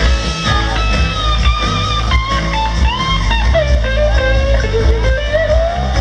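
Live blues-rock band playing: an electric guitar lead line bends and glides between notes over bass and drums.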